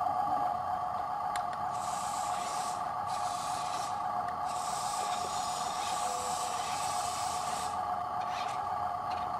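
Electric motor and gearbox of an RC model truck whining steadily, with spells of hissing as the wheels churn through mud.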